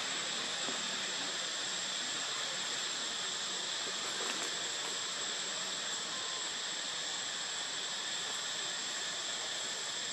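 A steady chorus of insects, a constant high-pitched hiss and drone that does not change.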